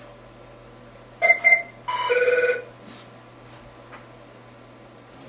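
Electronic phone ringtone sounding one ring cycle: two quick short beeps, then a longer, fuller tone of about two-thirds of a second. The next cycle begins near the end.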